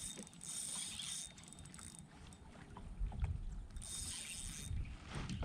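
A fishing reel being cranked with small mechanical clicks, over low knocks and bumps from the kayak.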